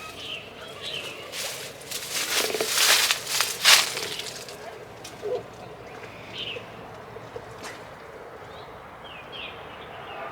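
Rustling noise for about two and a half seconds near the start, then short, faint bird chirps scattered through the rest, over a quiet outdoor background.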